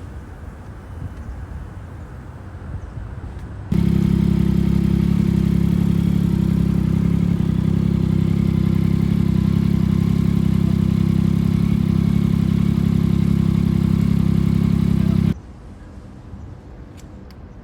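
Yamaha MT-09's inline three-cylinder engine running steadily at idle with no revving, starting abruptly about four seconds in and cutting off abruptly about eleven seconds later. Faint background noise before and after.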